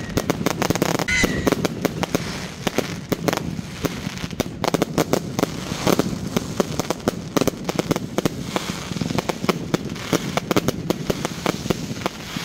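Fireworks going off in a dense, rapid barrage of sharp bangs and crackles, with a brief whistle about a second in.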